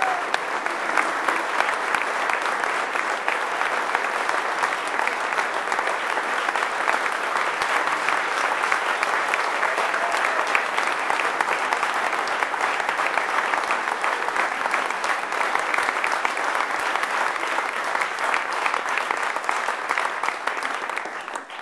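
An audience applauding: many people clapping together in a dense, steady patter that dies away just at the end.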